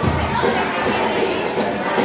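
Group of children singing a Spanish Christmas carol (villancico) with acoustic guitar and cajón, the many young voices blending into a loud, crowd-like chorus. A low thump right at the start.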